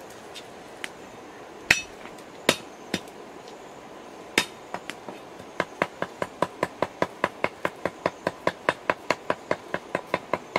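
Cleaver chopping on a round wooden chopping block: a few separate knocks at first, then from about halfway a fast, even run of about five chops a second.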